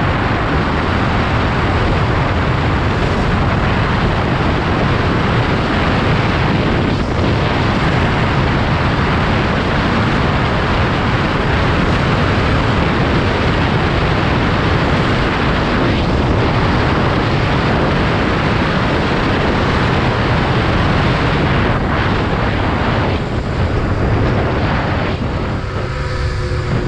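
Honda XR250 Tornado ridden at speed: heavy wind rush on the helmet or bike camera mic over the single-cylinder engine. Near the end the wind eases and a steadier engine note comes through.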